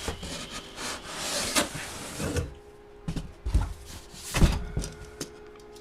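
Packaging around a boxed full-size football helmet being opened and handled: sliding and scraping for the first couple of seconds, then a few dull thumps and knocks.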